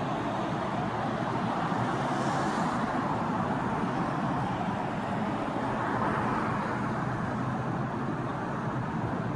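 Steady hum of city traffic and engines, even in level throughout.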